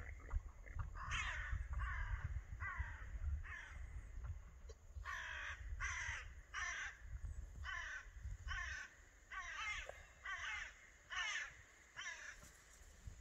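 Crows cawing repeatedly, a run of short harsh calls about one to two a second, with a low rumble underneath that fades out about two thirds of the way through.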